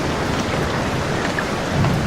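Steady heavy rain with a few drops ticking close by; a low thunder rumble swells near the end.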